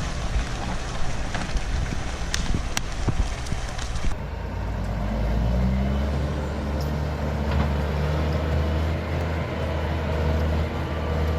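A dense crackling, crunching noise with sharp clicks, then an abrupt cut about four seconds in to a heavy diesel engine running steadily with a low hum.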